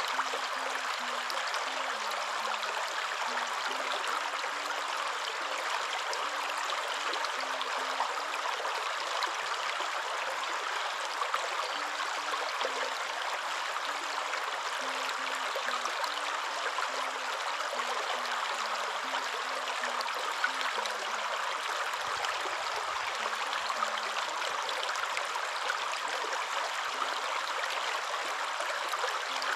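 Waterfall: a steady rush of falling water, an even hiss with no breaks or changes.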